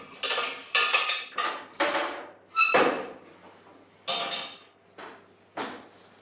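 A metal cooking pot struck with a spoon, a quick string of sharp clangs that each ring briefly. The hits thin out to a few spaced knocks in the second half.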